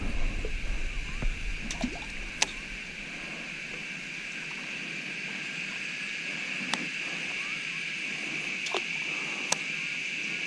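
A steady, high-pitched evening insect chorus, with a handful of sharp clicks scattered through it and a low rumble of handling noise in the first couple of seconds.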